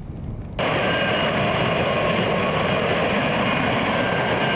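A faint low rumble, then, about half a second in, the loud steady jet noise of an F-35B Lightning II cuts in abruptly. Its F135 engine and lift fan are running in vertical-landing mode, with faint whining tones above the noise.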